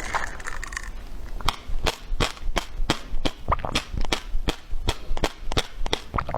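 Someone drinking in quick, rhythmic gulps close to the microphone: a short hiss at first, then about three sharp swallowing clicks a second.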